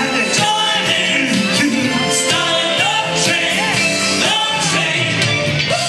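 Upbeat soul-style music with a steady beat, a woman singing live into a microphone over it through a PA system.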